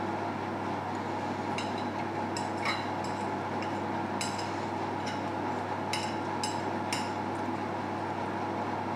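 Fork clicking and scraping lightly on a ceramic plate while cutting pizza, a scattering of faint taps over a steady low hum.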